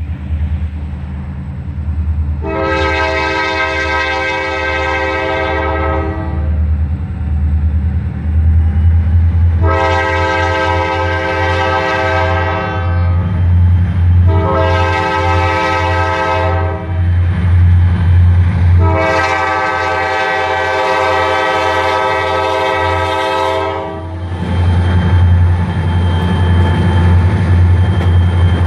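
EMD SD40-2 diesel locomotive's multi-chime air horn sounding the grade-crossing signal: long, long, short, long. A steady low diesel engine drone runs underneath, and near the end the train comes close and the engine and wheel noise grow loud.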